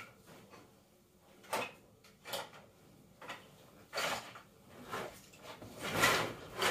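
A string of short, separate knocks and rustles, about five over several seconds, the last one longer and louder.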